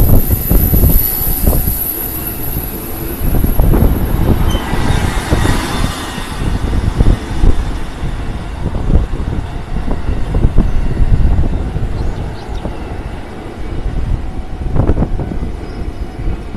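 Electric commuter train passing over a railway level crossing, a loud, uneven rumble with a high steady whine in the first few seconds.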